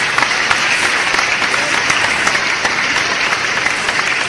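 Heavy rain falling steadily and loudly, a dense even hiss of countless small drop impacts.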